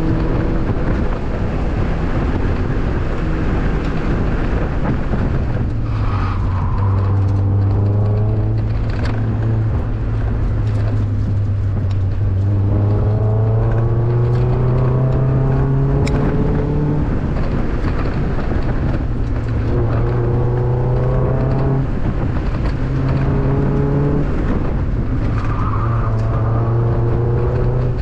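A 2002 Mazda Miata's 1.8-litre four-cylinder engine under hard driving. The revs climb, drop at each gear change, and climb again, over and over.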